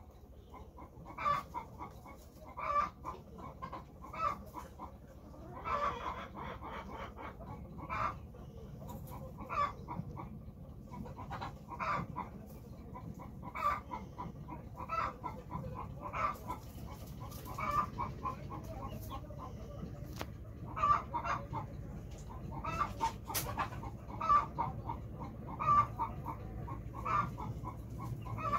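Chickens clucking on and off in short calls, one every second or so.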